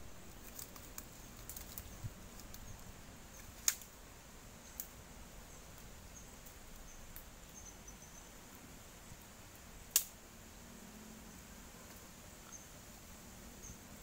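Dry twigs snapping a few times, sharp single cracks over a faint steady hiss; the two loudest come about four seconds and ten seconds in.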